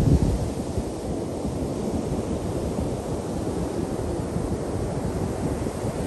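Ocean surf breaking and washing up a sandy beach, mixed with wind buffeting the microphone in low rumbles, strongest in a gust right at the start.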